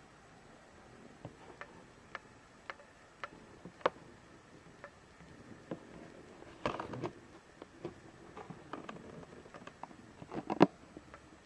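Handling noise: a dozen or so small, irregular clicks and taps, with short bursts of rustling about two-thirds of the way in and again near the end, the loudest click among them.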